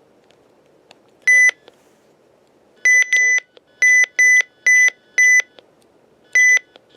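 Weather radio receivers beeping: eight short electronic beeps at one high pitch, irregularly spaced, the first about a second in. The receivers are sounding their alert for a NOAA Weather Radio weekly test.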